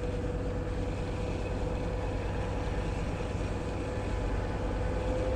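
Steady low engine drone with a constant mid-pitched hum.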